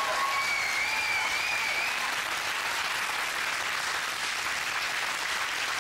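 Studio audience applauding steadily after the guest's name is announced, with one person's high, wavering whoop or whistle over the clapping in the first two seconds.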